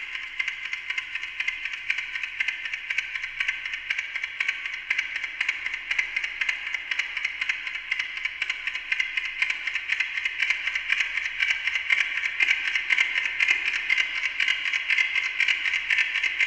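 Amplified ticking of a Westclox Silver Bell alarm clock, multiplied by a digital delay into a dense stream of overlapping ticks and echoes. The delay times are varied by a performer's galvanic skin response sensor, so the ticking seems to stretch and contract. It grows somewhat louder in the second half.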